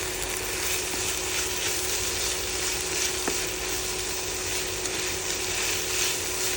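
Chicken, garlic, ginger and egg sizzling as they fry together in a pan, with a spatula scraping and stirring. There is one sharp click a little over three seconds in.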